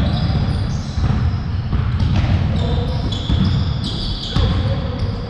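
Basketballs bouncing on an indoor gym court, a dense run of thumps during a pickup game, with voices mixed in.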